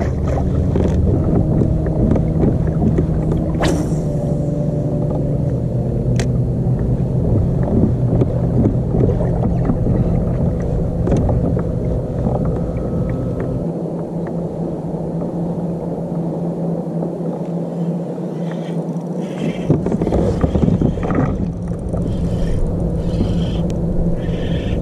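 Steady low rumble of a running motor vehicle, with a droning hum; the deepest part of the rumble drops away for several seconds midway, then returns.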